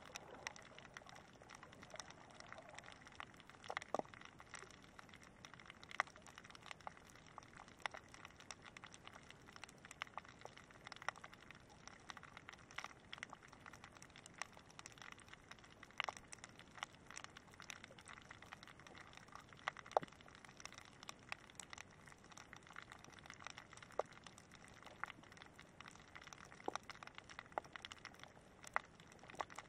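Faint underwater crackle: a steady scatter of sharp clicks, several a second and irregular, over a low hiss, with a few louder snaps now and then. This is the typical crackling of snapping shrimp on a shallow rocky reef.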